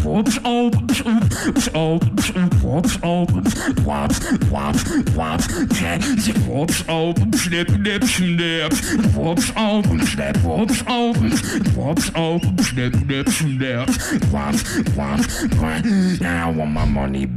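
Live beatboxing into a handheld microphone: fast, steady kick and snare clicks layered over a hummed bass line that steps from note to note.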